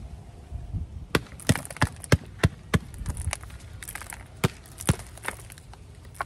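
A hand knocks and slaps the bottom of an upturned plant pot again and again, in sharp irregular knocks about twice a second, to loosen a root ball. The roots are stuck fast to the pot, so the plant does not slide out.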